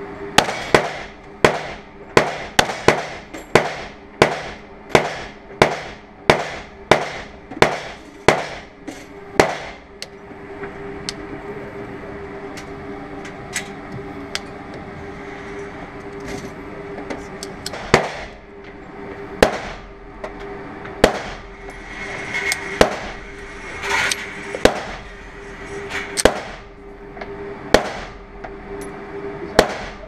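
SIG P210 pistol shots ringing off the walls of an indoor range: a quick string of shots, about two a second, for the first ten seconds or so. Then a pause of several seconds, and from about 18 seconds in more shots, spaced farther apart, over a steady hum.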